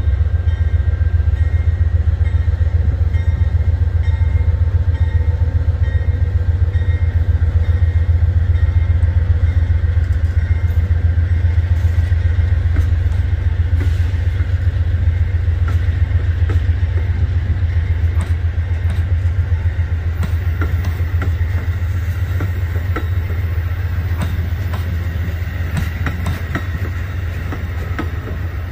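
Freight train passing close by: a deep, steady rumble, with wheels clicking over rail joints more and more often in the second half.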